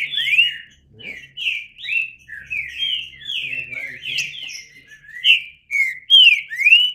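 Green-winged saltator (trinca-ferro) singing a loud, fast string of rich whistled notes, each sliding up or down in pitch, about two to three notes a second without a pause, stopping abruptly at the end.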